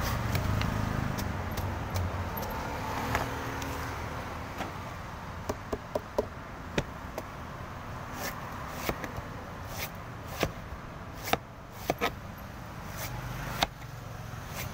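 Large knife chopping into the husk of a young green coconut, trimming it into shape: sharp, irregular chops, coming thick from about four seconds in. A low vehicle rumble fills the first few seconds.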